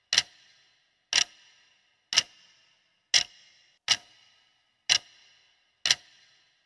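Clock-tick sound effect counting down a quiz answer timer: a sharp tick about once a second, seven in all, each with a short bright ring that fades before the next.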